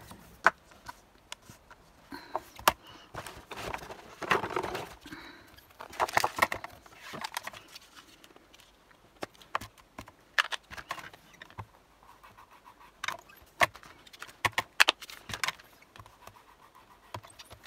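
Scattered sharp clicks and taps with short bouts of rustling: round magnets and the hinged clear lid of a magnetic stamping platform being handled while a sentiment stamp is set and pressed onto a strip of card.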